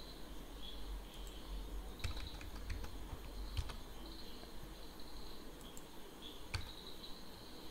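Computer keyboard being typed on in short scattered bursts of keystrokes, a cluster about two seconds in and single clicks later, over a faint hum.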